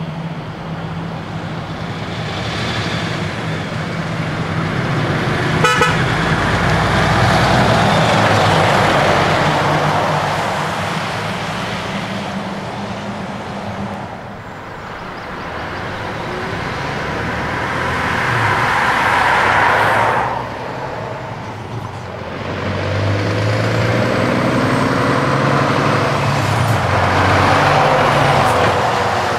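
Heavy diesel articulated trucks driving past one after another, engine and tyre noise swelling and fading with each pass. About six seconds in there is a brief horn toot. Near the end a New Generation Scania tractor unit accelerates past close by, its engine note climbing.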